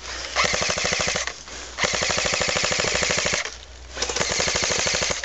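Airsoft electric gun firing on full auto: three bursts of rapid, evenly spaced shots, the middle one the longest at about a second and a half.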